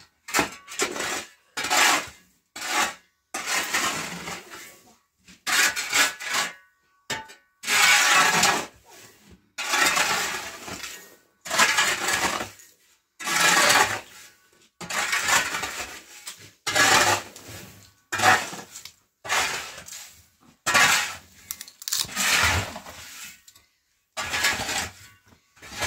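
Metal shovel blade scraping across a hard floor as it scoops loose dirt and rubble. The strokes are repeated and irregular, coming about once a second, and a few drag on longer.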